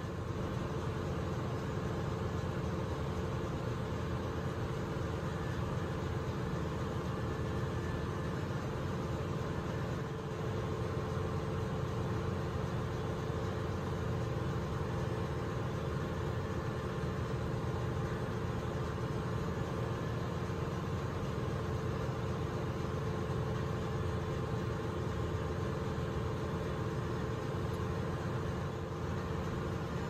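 Steady drone of ship's engine-room machinery, a constant low rumble with a steady hum over it.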